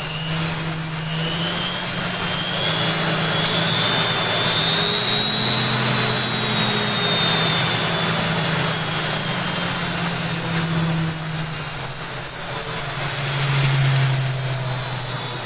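Empty washing machine on a high-speed spin: a high motor whine over a low hum and the rushing of the spinning drum. The whine climbs for the first several seconds, then slowly sinks in pitch.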